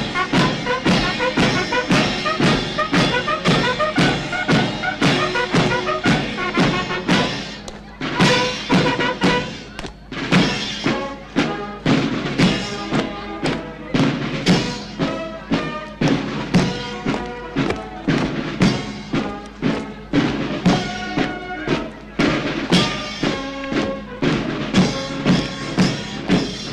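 Brass band music with a steady, heavy drum beat about twice a second, in march time.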